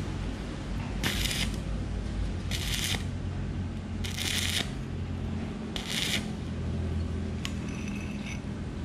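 Stick (arc) welder crackling in four short bursts about a second and a half apart, as weld beads are laid on the broken 6203 bearing's race inside a motorcycle rear sprocket hub so the bearing can be driven out. A steady low hum runs underneath.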